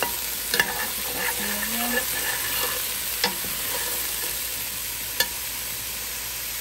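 Diced potato, carrot and zucchini frying in olive oil in a steel pot, a steady sizzle, while a metal spoon stirs them. The spoon clinks sharply against the pot a few times.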